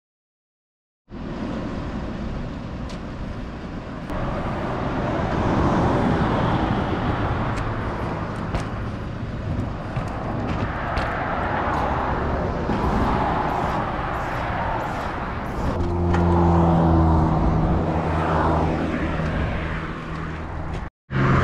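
Outdoor roadside noise after about a second of silence: a rushing haze like wind on a camera microphone, with road traffic and scattered clicks. About three quarters of the way through, a car engine starts a steady running hum.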